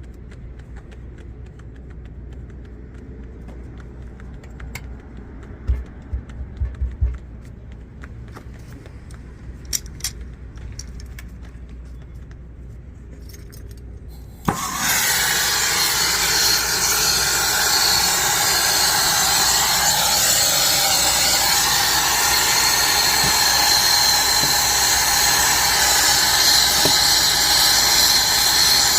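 A few light knocks and clinks of handling, then a click about halfway through and a plumber's torch lights with a sudden loud, steady hiss that burns on, heating a copper sweat joint for soldering.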